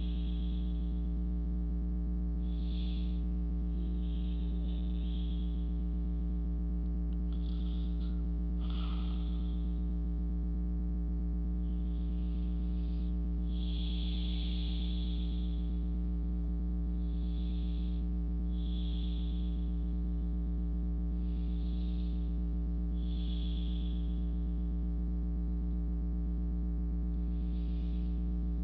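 Soft, slow breaths recurring every two to three seconds, heard over a loud, steady electrical hum.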